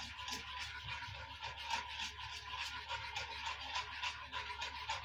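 Wire coil whisk stirring and scraping a thick cream sauce in a cast iron skillet: a continuous run of quick, soft rasping strokes.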